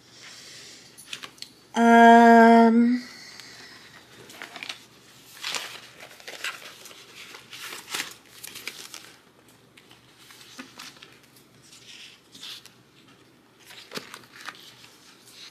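Paper sticker sheets rustling and crinkling as they are handled and flipped through, in short scattered strokes. About two seconds in, a loud, steady held hum of a woman's voice lasts about a second.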